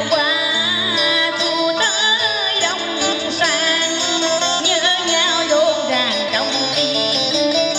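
A woman singing a Vietnamese cải lương melody into a microphone, her voice wavering and sliding in pitch, over instrumental accompaniment.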